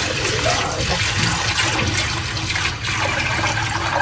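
Milk pouring in a thick stream from a pan into a large metal pot already part-filled with milk, splashing steadily into it.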